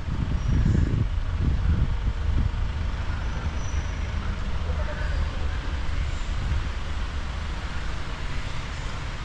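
A vehicle engine running steadily at low revs, with irregular low rumbles through the first couple of seconds.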